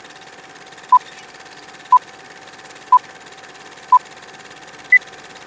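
Film-leader countdown sound effect: a short beep once a second over a steady hiss and crackle, then a single higher beep near the end.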